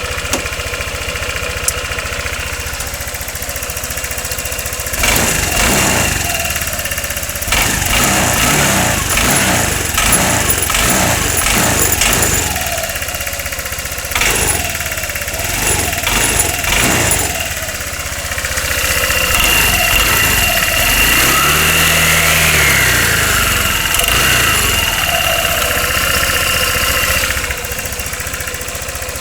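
Honda SH150i scooter's single-cylinder four-stroke engine running at idle, blipped several times in quick succession, then revved up and back down in one longer sweep before settling to idle again near the end. It runs without the heavy knock it had before the repair, as the mechanic judges it.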